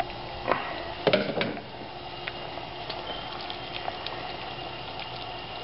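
Grape juice and pectin bubbling at a boil in a saucepan as a large amount of sugar is poured in, with a few brief knocks in the first second and a half.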